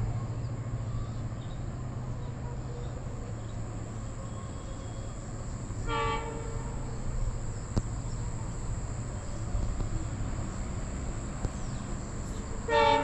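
Horn of an approaching, still unseen train sounding short blasts, one about six seconds in and another near the end, over a steady low rumble. A constant high-pitched insect drone runs underneath.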